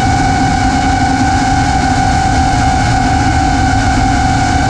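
Five-inch FPV racing quad's brushless motors (XING X2207 2450KV) and propellers whining at a steady pitch, heard from the onboard camera along with the rush of wind over the quad.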